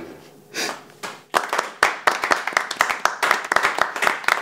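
A small group of people clapping in applause, starting about one and a half seconds in as a quick, uneven patter of hand claps.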